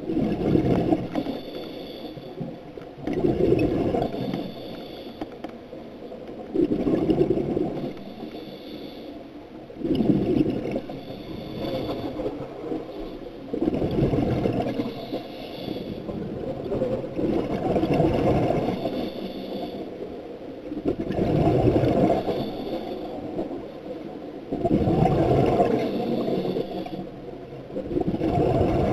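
Scuba regulator breathing underwater: a gurgling burst of exhaled bubbles about every three and a half seconds.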